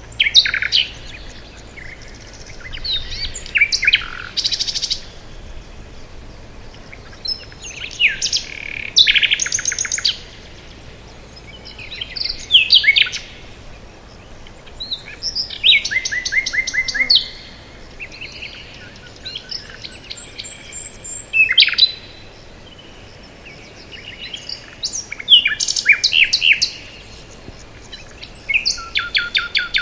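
Songbirds singing: short phrases of rapid chirps and trills, one every three to four seconds.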